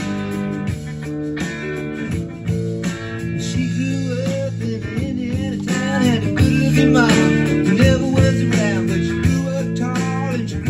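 A song with guitar playing through an ECOXGEAR SoundExtreme SE26 Bluetooth soundbar, swelling a little fuller about halfway through.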